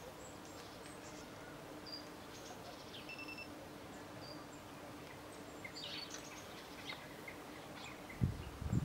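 Quiet outdoor ambience with scattered short, high bird chirps and whistles over a faint steady hum. About eight seconds in, loud low rumbles of wind buffeting the microphone break in.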